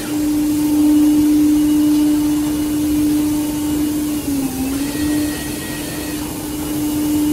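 Woodmaster 5-axis CNC router's spindle running at high speed and cutting a curved wooden chair back: a steady whine over the hiss of the cut, with a brief dip in pitch about halfway through as the cutter takes more load.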